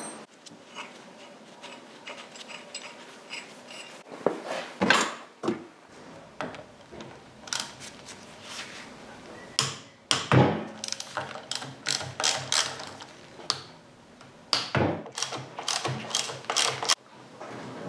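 Hand ratchet spanner clicking in quick runs while fasteners are undone on a motorcycle being stripped, with sharp metallic clanks of tools and parts in between.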